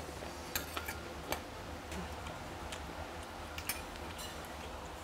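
Irregular light clicks and taps of a metal spoon against stainless steel bowls while eating.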